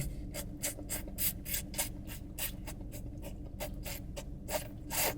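Loud open-mouthed chewing and lip-smacking on noodles, a quick run of wet smacks about five a second, with a few louder ones near the end.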